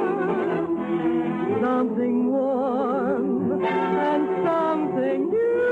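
Voices singing long held notes with vibrato over an orchestra, the notes changing every second or two, in a Broadway show song.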